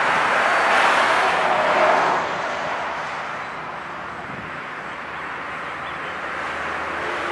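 A vehicle passing by: a broad rushing whoosh that swells to its loudest about two seconds in, then fades to a low steady background.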